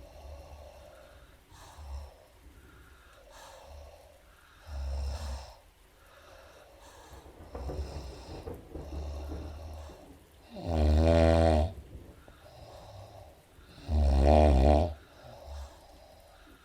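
A woman snoring in her sleep: quiet breaths at first with one softer snore about five seconds in, then two loud, pitched snores about three seconds apart in the second half.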